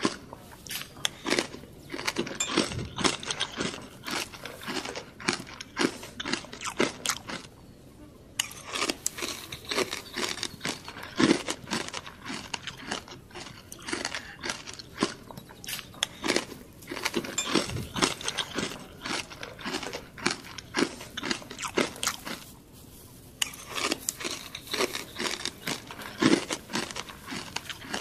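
Close-up crunching and chewing of crispy pata, the deep-fried pork knuckle's crackling skin breaking between the teeth, in quick irregular bites with two short breaks, about eight seconds in and near the end.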